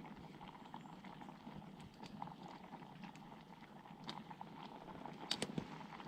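Faint crackling and bubbling of food cooking over an open campfire, with a few sharper pops about five seconds in.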